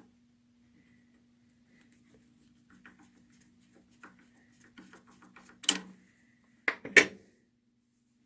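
Small metal parts being handled: light clicks and scrapes, then two loud sharp metal clanks about a second apart in the second half, over a steady low hum.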